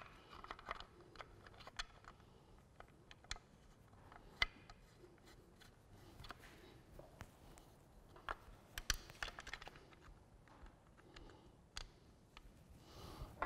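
Faint scattered clicks, taps and rubbing of a plastic scooter mudguard and its brackets being handled and pushed into place on the rear swing arm, with sharper clicks now and then, the sharpest about four seconds in.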